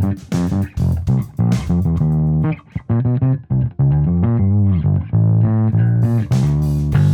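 Electric bass played solo through an Ampeg Rocket Bass RB-115 combo amp with a 15-inch speaker: short, sharply plucked notes, then longer held notes with a few pitch bends in the middle, and quick plucked notes again near the end.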